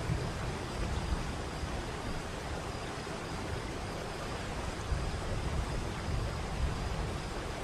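Waterfall rushing steadily: a dense hiss of falling water over a deep, uneven low rumble that grows stronger at the start.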